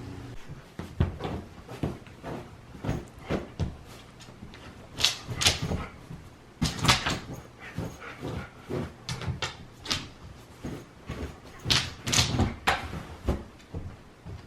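Dogs scuffling in a play fight: irregular thumps, knocks and scrapes of paws and bodies.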